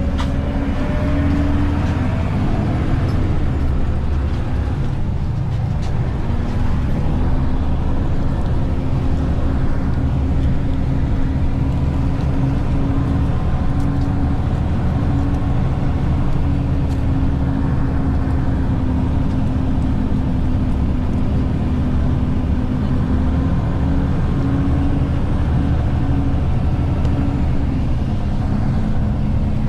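Ikarus EAG E94 city bus under way, heard from inside the passenger cabin: steady engine and road rumble with a whine that drops slightly in pitch near the end.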